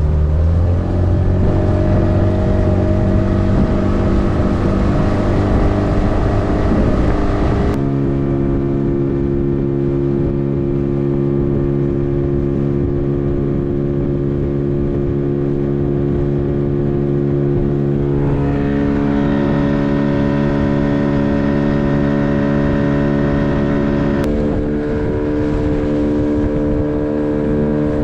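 15 hp outboard motor running steadily under way, pushing a fibreglass fishing boat. Its engine note shifts abruptly twice.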